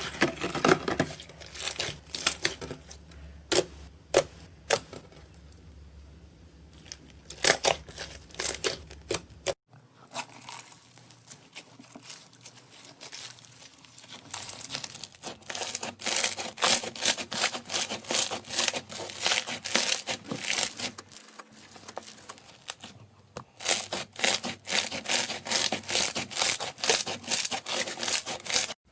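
Fluffy clay slime being squeezed, stretched and pulled apart by hand, giving sharp crackling clicks and tearing sounds. The clicks come sparsely at first, then in dense runs of crackling.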